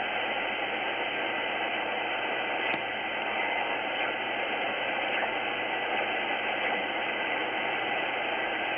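Tecsun S-2200x shortwave receiver in single sideband giving out steady static as it is tuned up through the 3 MHz aeronautical band, with no station coming through. The hiss is even and stops short of the high treble.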